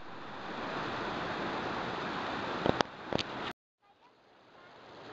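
Mountain stream running over boulders: a steady rush of water that fades in, with two or three brief clicks about three seconds in. It cuts out abruptly for a moment near the end, then fades back in.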